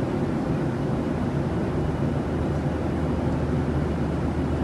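Airliner cabin noise in flight: a steady, even low rumble.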